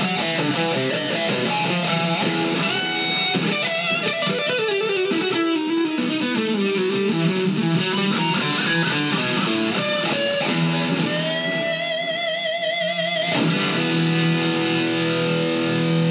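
Distorted electric guitar played through a Vox Valvetronix AD50VT-XL modelling amp: fast lead runs, then a held note with wide vibrato about two-thirds of the way through, followed by repeated low notes.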